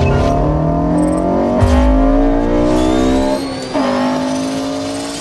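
Car engine accelerating hard through the gears. Its pitch climbs, drops sharply at an upshift about a second and a half in, climbs again, and drops at a second shift about two seconds later before rising once more.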